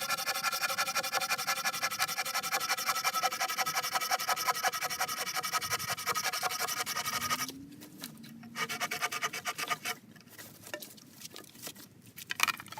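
Background music that cuts off about seven and a half seconds in, followed by the quieter rasping strokes and knocks of a Bahco hand saw cutting through a wooden pole.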